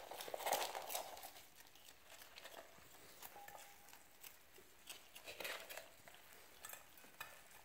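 Faint rustling and light clicking as a hand sorts through live superworms and carrot slices in a small cup, with louder rustles near the start and again about five and a half seconds in.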